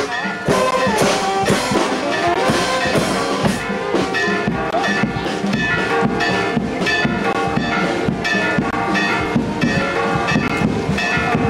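Brass band music with drums, playing with a steady beat.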